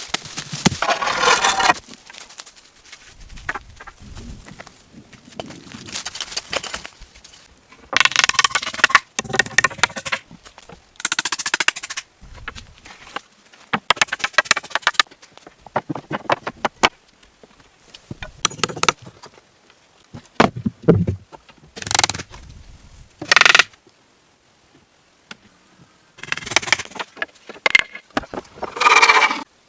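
A string of short, separate bursts of hand-tool work on wood: sharp knocks and scraping, each a second or two long, breaking off suddenly into brief quiet.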